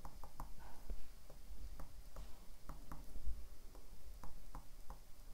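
Faint, irregular ticks of a stylus tapping and sliding on a tablet screen during handwriting.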